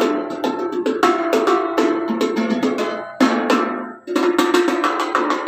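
A stainless-steel sheet-metal ball struck by hand like a handpan: quick strikes of ringing metallic notes, several a second, out of tune and wonky, with a brief pause about four seconds in.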